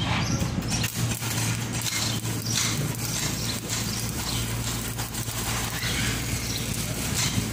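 Stick welding arc crackling and sizzling irregularly over a steady low machine hum.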